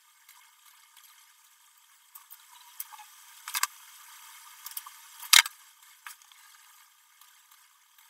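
A few sharp computer-mouse clicks over faint steady hiss, a pair about three and a half seconds in and the loudest about five seconds in.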